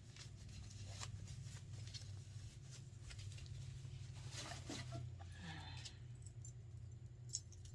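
Faint rustling and light clicks of packaging being handled as an item is unwrapped, with one sharp click near the end, over a steady low hum.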